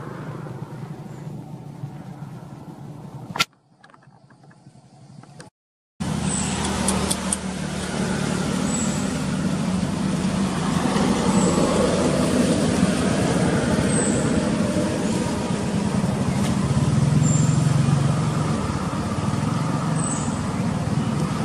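Steady low rumble of outdoor background noise with faint short high chirps every second or two. It cuts off with a click about three and a half seconds in and comes back louder at about six seconds.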